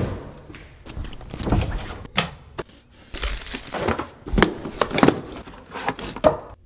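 Cardboard product boxes being handled and unpacked: irregular knocks, scrapes and rustles as a box lid is opened and the small plastic Wi-Fi units are lifted out of their tray, with a thump right at the start.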